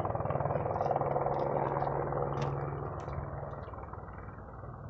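Helicopter in flight: a steady low drone that fades over the second half.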